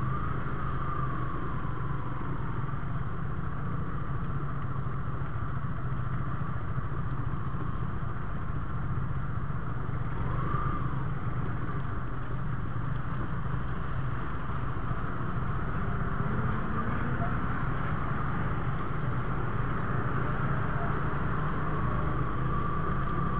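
Motorcycle engine running steadily while riding at a low, even speed, with a steady rushing noise over it.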